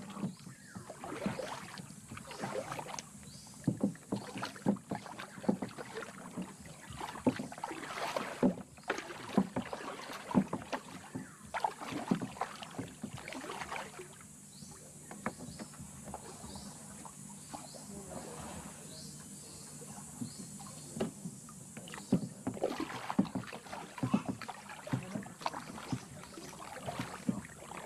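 Paddle strokes in water around an outrigger canoe: irregular splashes, drips and sloshing, sparser for a few seconds around the middle.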